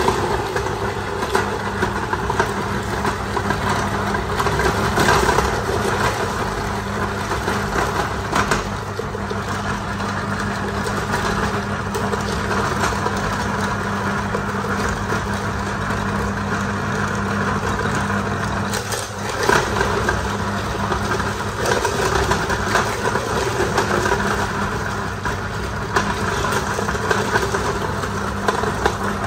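Cast-iron No. 32 meat grinder, belt-driven by an electric motor, running steadily with a constant motor hum while it grinds whole fish heads and bones through its auger, with scattered crackles.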